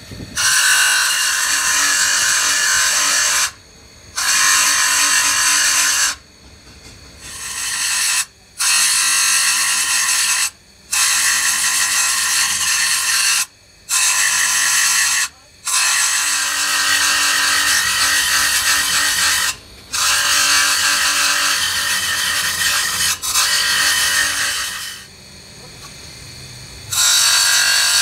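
Steel pinion gear ground against a thin abrasive disc spun by a bench-mounted electric motor: a loud, high grinding in stretches of a few seconds, broken by brief pauses with only the motor's hum.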